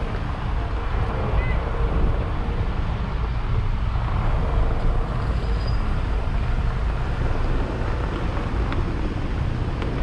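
Wind buffeting the microphone: a steady, fairly loud low rumble.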